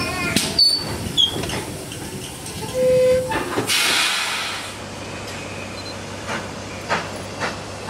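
Steam locomotive at a station: steam hissing, a short single-pitched whistle toot about three seconds in, then a louder burst of steam hiss. After that it drops to a quieter, steady low hum with a few faint clicks.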